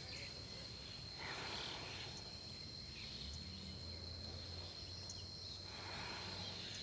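Faint steady high-pitched insect drone, a continuous chirring tone typical of crickets or cicadas in a tropical jungle, with a few faint scattered chirps.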